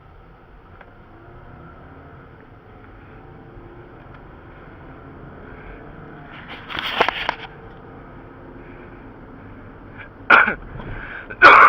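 A man blowing out loud exhaled breaths and sighs, one about two-thirds of the way in and two short falling ones near the end, as if overheated, over a steady low hum.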